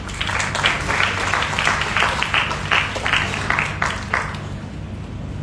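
Audience applauding: a dense patter of many hands clapping that dies away about four seconds in.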